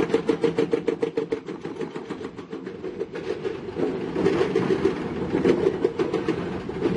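Heavy crawler construction machinery at work: a diesel engine running with a fast, even clatter. It is louder at the start, eases off in the middle and builds again from about four seconds in.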